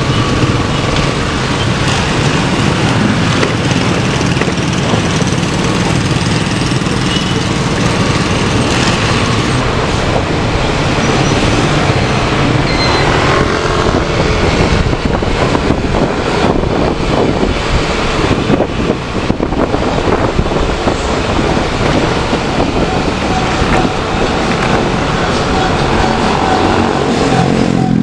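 Steady road traffic noise with vehicle engines running, and people talking in the background.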